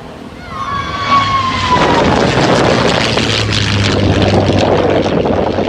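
Propeller airplane sound: a high tone that slides slightly down for the first couple of seconds, then loud, steady engine and rushing noise with a low hum underneath.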